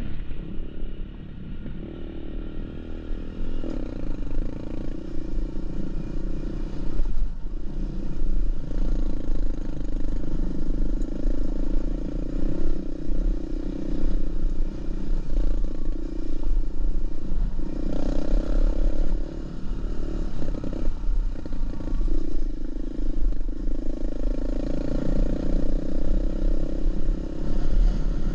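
Dirt bike engine running while riding along a dirt road, its note rising and falling with the throttle.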